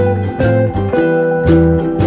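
Background music led by plucked guitar, notes changing about every half second over a bass line.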